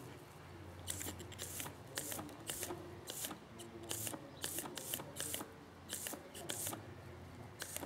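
Sheep dogs (kelpie/collie crosses) panting in short, irregular, hissy breaths, about two a second, as they trot about warm from play.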